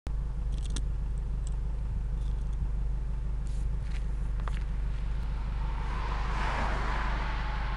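Exhaust of an Acura Integra sedan's four-cylinder engine, running through a 4-1 header, 2.25-inch midpipe with a GSR resonator and a 2006 Civic Si axle-back muffler, idling with a steady, even low rumble at the tailpipe. About six seconds in, another car passes by, swelling and fading.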